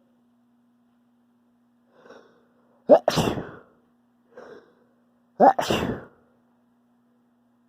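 A person sneezing twice, about two and a half seconds apart. Each sneeze is preceded by a short in-breath.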